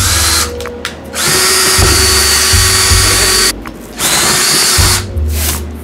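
Cordless drill running in three spells, the longest about two seconds in the middle, its bit boring through a layered cardboard deck.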